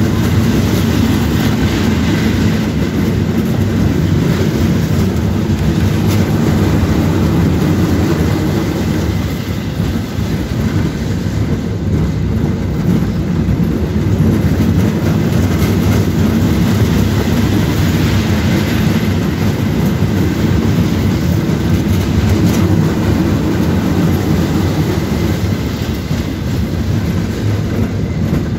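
Roller coaster cars running along the track, heard from on board: a loud, steady rumble of the wheels with a faint clatter.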